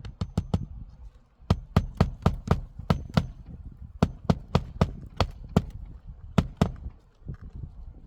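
Hammer blows in quick runs of several strikes, about three a second, with short pauses between the runs, as roofing nails are driven into shingles.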